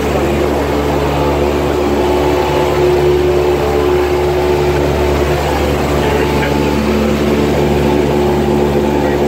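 Piston engine and propeller of a single-engine light aircraft running with a steady, even drone, heard from inside the cabin in flight.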